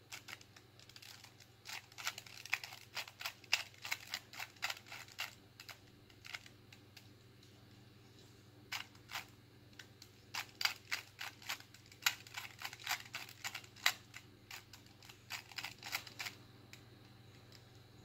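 A plastic 2x2 Rubik's cube being turned quickly by hand: runs of sharp clicking face turns, several a second, in bursts separated by short pauses, with a pause of about two seconds near the middle and the turning stopping shortly before the end.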